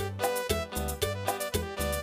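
Latin dance music with a steady beat and a repeating bass line.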